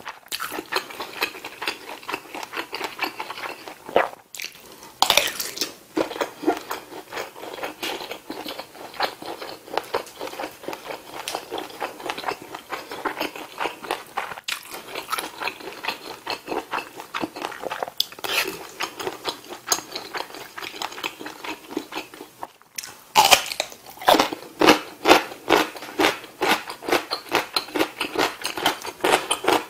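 A person chewing a mouthful of food close to the microphone: wet, crunchy bites in quick, steady strokes, louder in the last several seconds.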